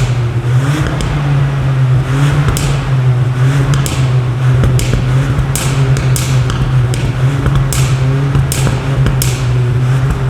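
Ford Puma engine and exhaust, its exhaust flaps held open, running at steady revs with a constant low drone and a scatter of short sharp cracks.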